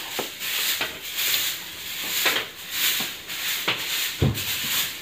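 Irregular scratchy rubbing or scraping strokes, with a low thump about four seconds in.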